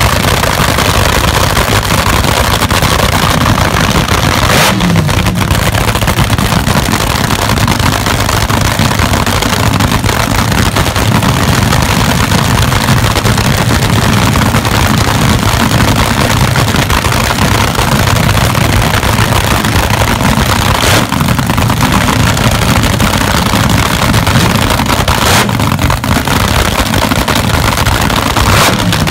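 Dragster engine running loud through open exhaust headers at a fire-up, with short blips of the throttle about five seconds in and near the end.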